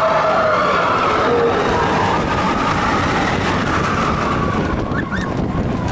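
Steel roller coaster train racing along its track: a loud, steady rush of wheel noise and wind, with riders screaming over it for the first couple of seconds before the screams die away.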